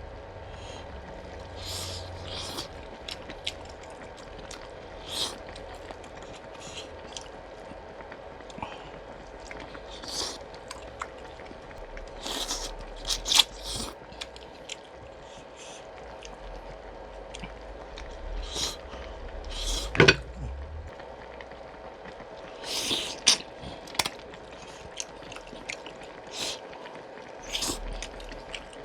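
Someone eating pork-bone soup: wet chewing and slurping with scattered clinks of spoon and bowl, and one sharp click about two-thirds of the way through. A faint steady hum runs underneath.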